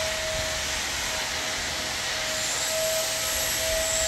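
A steady whooshing machine noise with a constant mid-pitched whine, like a running motor-driven fan; a faint high whine joins it about two and a half seconds in.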